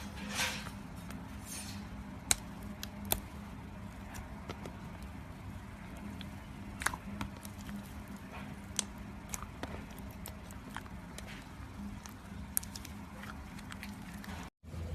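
Slime being pressed and worked by hand, giving scattered sticky clicks and small pops over a steady low hum.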